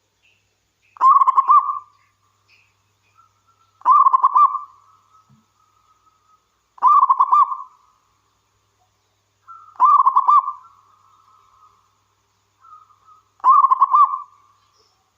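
Local zebra dove (perkutut) singing its cooing song: five trilled coo phrases about three seconds apart, with fainter soft notes between them.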